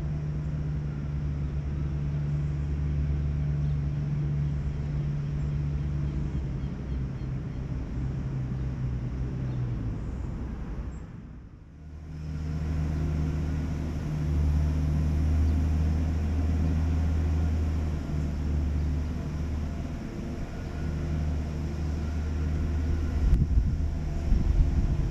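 Steady low rumble of road traffic, fading out briefly about halfway through and back again, with louder low rumbles near the end.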